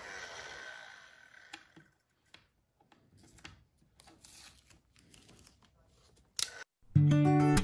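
A heat gun's blowing fades out over the first second or so. Then come faint, scattered crackles of blue painter's tape being peeled back off the heat-softened epoxy edge. Near the end, guitar music starts loudly.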